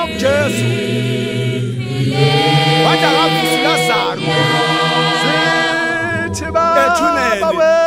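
Zion church choir singing a cappella in isiZulu, several voices in harmony over a sustained low bass part.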